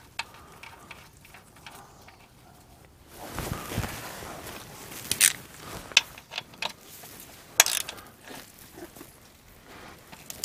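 A socket ratchet wrench worked by hand on the underside of the engine: irregular sharp metal clicks with a stretch of scraping from about a third of the way in.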